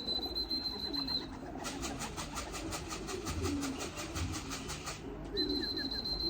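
Pigeons cooing in short low notes. A steady high beep sounds twice, once at the start and again near the end, with a fast run of even clicks between.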